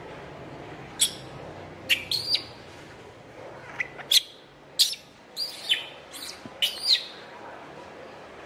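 Baby monkey crying in distress: about ten short, shrill, high-pitched calls from about a second in until near the end, each falling in pitch, as she protests at being left by her mother.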